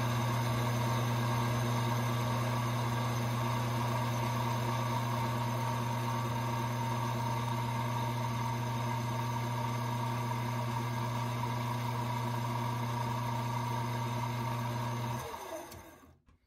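Small bench lathe's electric motor running with a steady hum as it spins a brass rifle case in its chuck for neck turning; it is switched off near the end and winds down.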